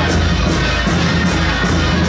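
Loud music with a steady beat and heavy bass.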